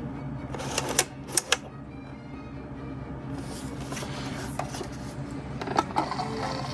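GAF Talking View-Master playing its demonstration reel's sound track: faint music over a steady low hum, with sharp mechanical clicks from the viewer about a second in and again near the end.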